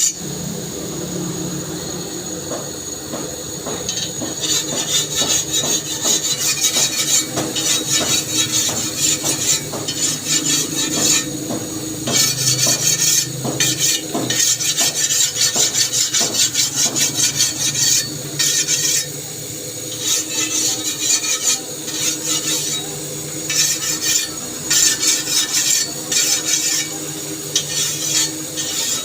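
Steel file rasped back and forth over a toka fodder-cutter blade in quick repeated scraping strokes, with two short pauses late on.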